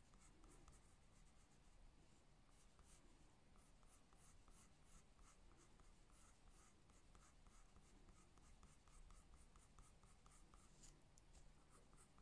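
Faint scratching of a 6B graphite pencil on drawing paper: short, light shading strokes, a few a second.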